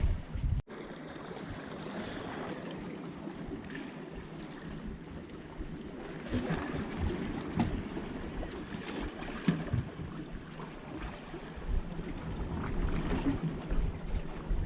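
Sea water washing and lapping against a rocky shoreline, with wind gusting over the microphone.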